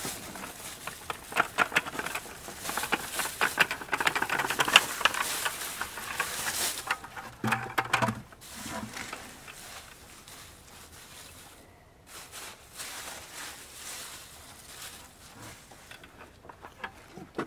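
Dry leaves crackling and rustling as they are tipped onto a compost pile and spread by hand. The sound is busiest for the first seven seconds, then thins to soft, occasional rustles.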